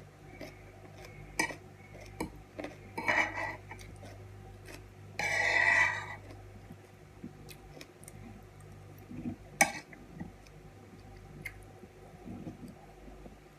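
Metal fork clinking and scraping on a plate while picking up crumbled cheese: scattered sharp clinks, with a longer, louder scrape about five seconds in.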